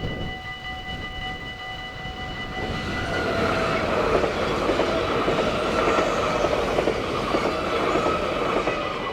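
Dutch level-crossing warning bell ringing on a steady set of tones while a train passes over the crossing. The train's wheel-and-rail noise builds from about three seconds in and cuts off suddenly at the end.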